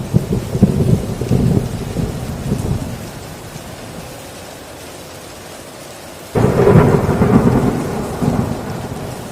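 Heavy rain on a tin roof with two rolls of thunder: one rumbling at the start and dying away over about three seconds, then a sudden clap about six seconds in that rumbles on and slowly fades.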